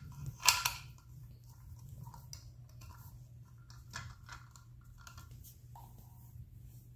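Small plastic parts of a toy desk vacuum being handled and fitted together: a sharp plastic clatter about half a second in, then faint scattered clicks and rustles.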